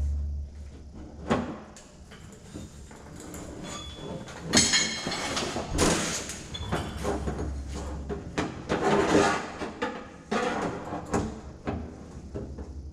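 Sheet metal of a car door being worked with a body hammer and dolly: scattered sharp knocks and stretches of rattling metal clatter.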